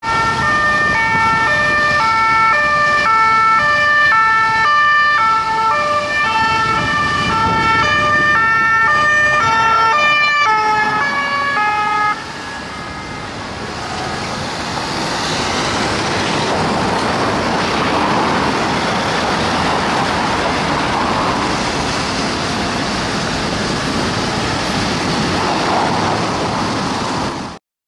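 Two-tone police siren on an unmarked Peugeot 508 GT, alternating high and low notes of about half a second each. It stops abruptly about twelve seconds in, leaving steady city traffic noise.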